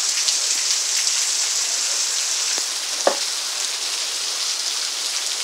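Heavy rain falling steadily, a dense even hiss of drops on surfaces, with one brief tap about three seconds in.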